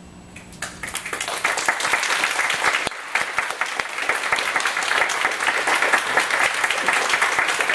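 Audience applause that breaks out within the first second and builds to steady clapping, with a brief dip about three seconds in.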